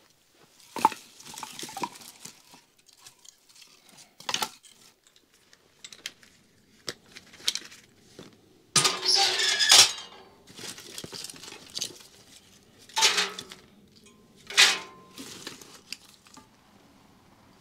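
Pots, pans and cutlery being handled, clinking and knocking in a string of separate sounds. The loudest is a noisy stretch about a second long, about nine seconds in.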